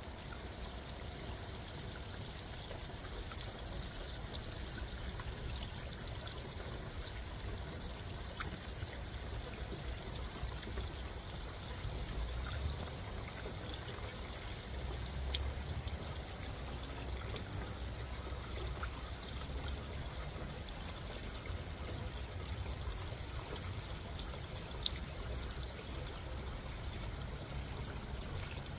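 Rainwater pouring and trickling steadily down a metal cup-style rain chain, with a few faint drip ticks.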